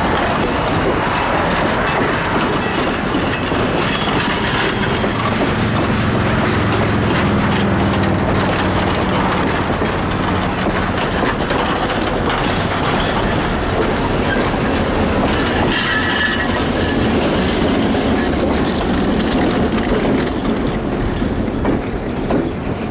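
Niles Canyon Railway excursion train passing close by, its steel wheels rolling and rattling on the rails. A brief high wheel squeal comes about sixteen seconds in, and the noise eases slightly near the end as the last of the train, a diesel locomotive, clears.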